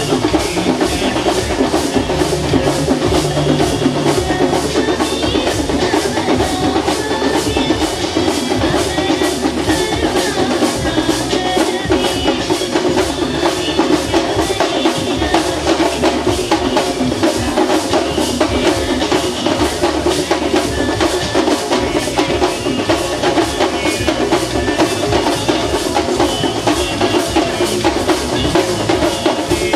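Processional drumming: drums beating a rapid, steady rhythm that runs on without a break.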